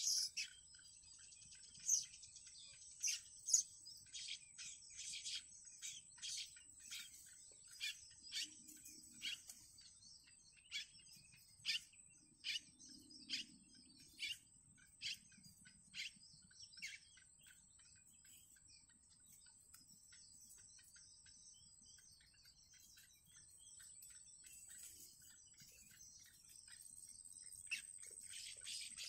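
Yellow bittern chicks giving short, high-pitched begging chirps, coming quickly for the first half and then only now and then, over a steady high-pitched whine.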